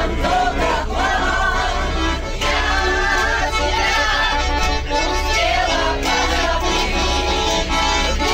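Several women singing a song together to a live accordion.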